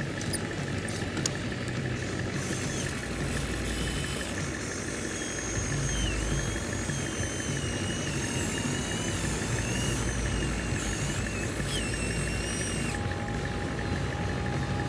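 Radio-controlled excavator model working, with a steady engine-like drone. Over it, a high electric-motor whine wavers up and down in pitch from about two seconds in and stops near the end.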